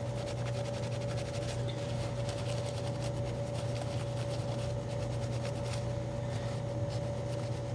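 A cloth rubbing thermal compound off a laptop video card's circuit board, faint irregular scratchy strokes over a steady background hum.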